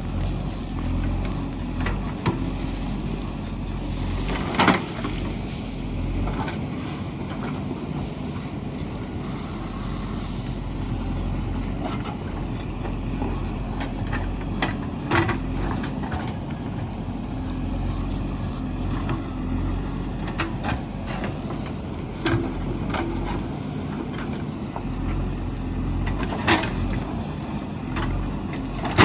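JCB 3DX backhoe loader's diesel engine running steadily under work, with a few sharp knocks and clanks over it, the loudest about five seconds in and again near the end.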